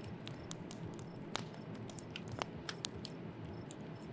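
Wood campfire crackling: irregular sharp pops and snaps over a low steady hiss of burning.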